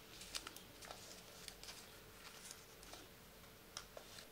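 Folded white paper crackling in the hands as a paper boat is pulled open into shape: a handful of short, crisp rustles and clicks over a faint steady hum.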